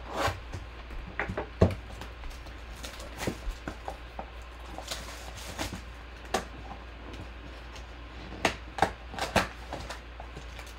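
Shrink-wrap being slit and peeled off a cardboard Panini Prizm trading-card mega box and the box flaps opened: scattered crinkles, scrapes and sharp clicks, with a cluster of louder clicks near the end. A steady low hum runs underneath.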